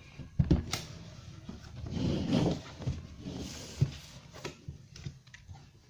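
Cardboard laptop box being handled and opened: a few light knocks and taps, with a scraping, rustling stretch about two seconds in.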